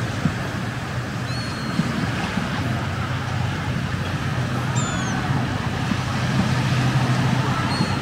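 Beach ambience: a steady wash of surf under a constant low engine hum, with a few short high-pitched chirps about a second in, near the middle and near the end.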